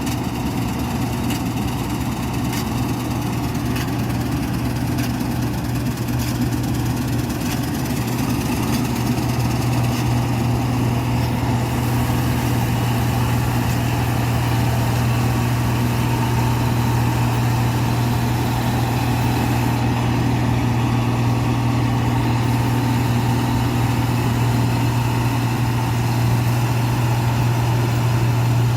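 New Holland 8070 combine harvester's diesel engine running steadily with a deep, even hum, getting a little louder toward the end.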